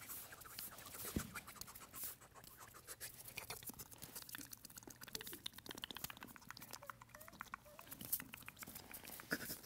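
Faint patter and rustling of two puppies scrabbling about and being handled, a run of light clicks and scratches.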